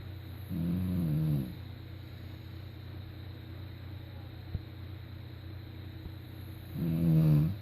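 Snoring: two pitched snores, each about a second long and dipping in pitch at the end, about six seconds apart, over a steady low hum.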